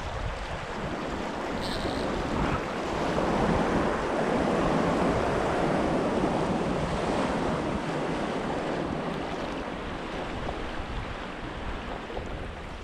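Small ocean waves washing among shoreline rocks, with wind on the microphone. The wash swells for a few seconds in the middle, then eases off.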